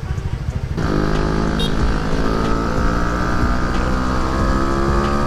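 Honda Winner X motorcycle's single-cylinder engine running at low revs with a lumpy beat. About a second in, the throttle opens and the engine runs on at a steady, higher pitch.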